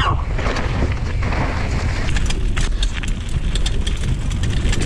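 Mountain bike rolling fast down a dirt forest trail: wind buffeting the camera microphone over the tyre noise, with many short rattling clicks from the bike over the bumps, more of them from about halfway through.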